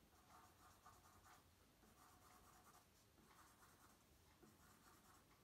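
Faint felt-tip marker on paper, a series of short strokes as small spots are drawn.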